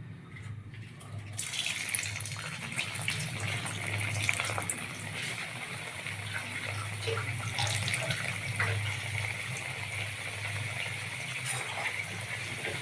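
Potato samosas frying in hot oil: a steady sizzle with many small crackles, starting about a second in as they go into the oil.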